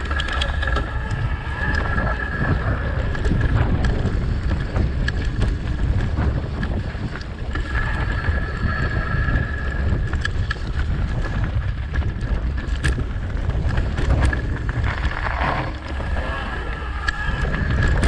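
Mountain bike descending a dirt trail covered in dry leaves: wind rumbling on the camera microphone, tyres rolling over dirt and leaves, and short rattles over bumps. A high, steady whine from the bike comes and goes about three times.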